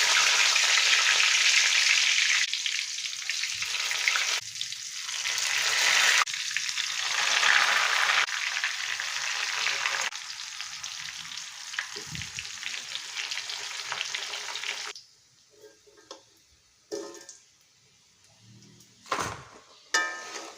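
Cassava pieces sizzling loudly in hot frying oil, with the sound changing abruptly every couple of seconds. About fifteen seconds in the sizzle stops, leaving a few faint knocks and clicks.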